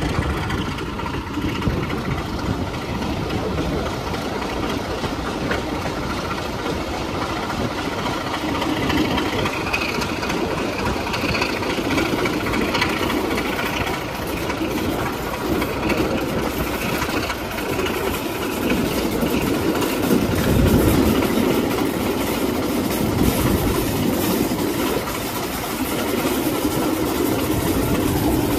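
Class 33 diesel-electric locomotive's Sulzer eight-cylinder engine running steadily as the locomotive travels along the line, heard at the cab side window together with the running noise of the train on the track.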